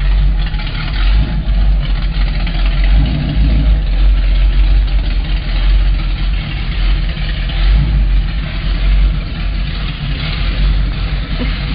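1932 roadster pickup's engine running steadily.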